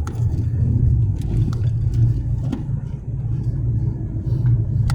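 Car interior noise while driving: a steady low rumble of engine and road, with a few faint clicks.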